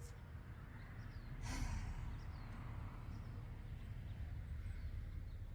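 A single sharp exhale, sigh-like, about a second and a half in, over a steady low outdoor rumble.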